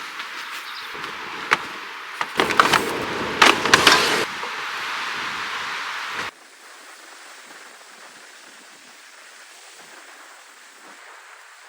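Seaside outdoor ambience of wind and surf noise with several sharp knocks and clatters in the first few seconds; about six seconds in it cuts off abruptly to a much quieter steady hiss.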